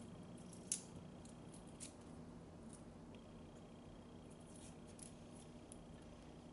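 Faint, sparse crackles and ticks of fingers peeling the papery skin off a garlic clove, with one sharper click a little under a second in, over a low steady hum.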